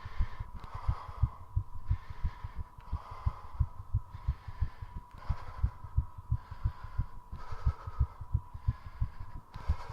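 Human heartbeat, a quick, steady run of deep double thumps, with heavy rhythmic breathing in and out over it. The breathing and heart rate are raised by squat exercise.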